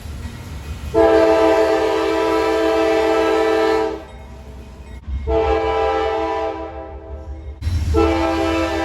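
Locomotive air horn sounding a chord of several notes in long blasts: one of about three seconds, a slightly shorter one after a brief gap, and a third starting near the end. A low rumble from the train runs underneath.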